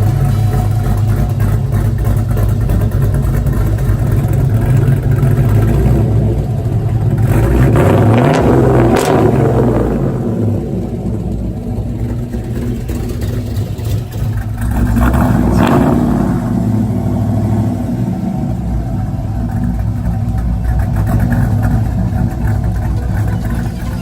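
Engine of a 1966 Chevrolet Nova through a 3-inch exhaust with Kinney's Street Demon mufflers and an X-pipe, idling with a steady rumble and revved up and back down twice, about eight seconds in and again about fifteen seconds in.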